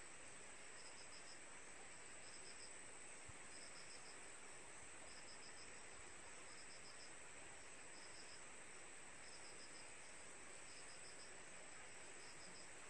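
Faint cricket chirping: short chirps of a few quick pulses, repeating about once a second, over a steady high hum.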